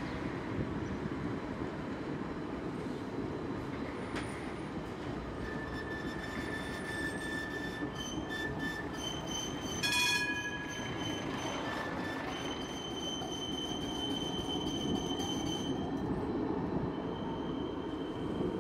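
Light rail tram running on street track: a steady rumble of wheels on rail, with high-pitched wheel squeal on a curve from about six seconds in to near the end, loudest about halfway through.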